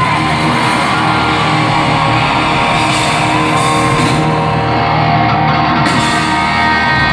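Hard rock band playing live, loud, with electric guitar in front over the drums.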